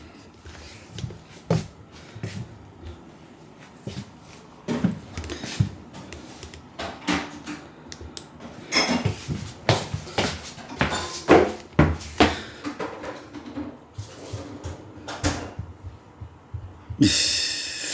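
Household clatter: scattered knocks, clicks and clinks like dishes and cupboard doors being handled in a kitchen, with a brief loud rushing noise near the end.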